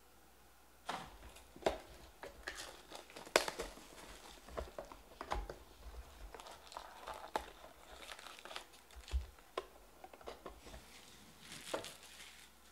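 Foil trading-card pack wrappers crinkling and crackling in irregular bursts as the packs are handled at the box, starting about a second in.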